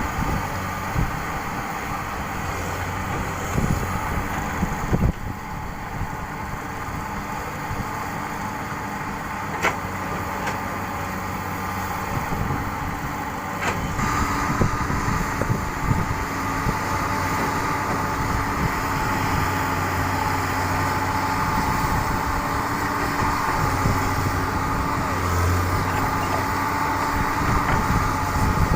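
Komatsu excavator running and digging: a steady engine hum with a whine above it that grows louder about halfway through, and scattered knocks and clanks throughout.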